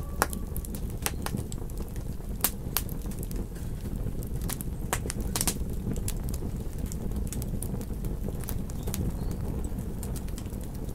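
Campfire crackling: irregular sharp pops and snaps over a low steady rumble of burning. A wolf howl trails off right at the start.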